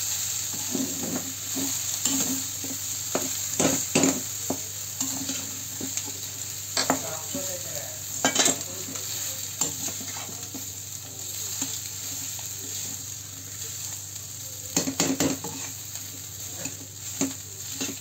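Perforated metal spatula scraping and stirring a mashed potato and pea filling in a metal kadhai on the stove, over a steady frying hiss. The scrapes and clinks come irregularly, in flurries about four, eight and fifteen seconds in.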